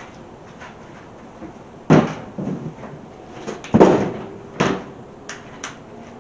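A series of knocks and thumps: two loud thuds about two seconds apart, then a few lighter clicks.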